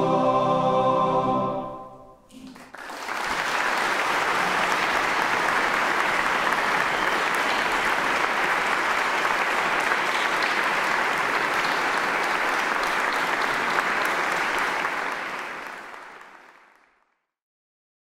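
Boys' choir holding the final chord of a piece, which cuts off about two seconds in and dies away in the church's reverberation. An audience then breaks into steady applause, which fades out near the end.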